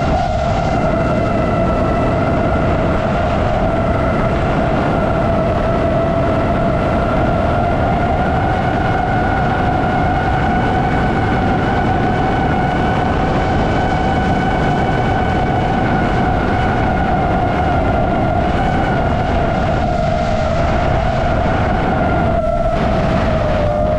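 iFlight Nazgul Evoque F5X 5-inch FPV quadcopter's brushless motors and propellers whining at a steady pitch, heard from on board with a rush of air noise underneath. The whine falters briefly a couple of times near the end.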